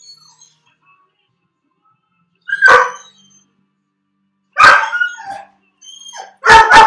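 A dog left home alone barking in distress: three loud barks about two seconds apart, the last a quick double that runs into the start of a howl.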